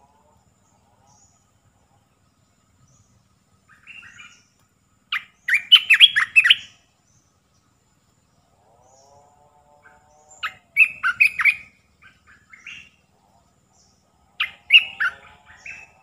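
Olive-winged bulbul singing: three short bursts of quick, bubbly chirping phrases, a few seconds apart.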